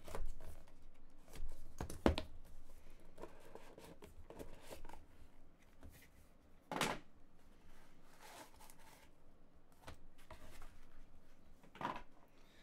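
Handling noise of a cardboard trading-card box being cut open with a utility knife and hard plastic card cases being lifted out and set down: scattered clicks, scrapes and knocks of cardboard and plastic, with sharper knocks about 2, 7 and 12 seconds in.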